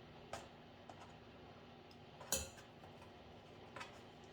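Three light clicks of a kitchen utensil against a dish as baked potato skins are stuffed with filling, the loudest a little over two seconds in, over quiet room tone.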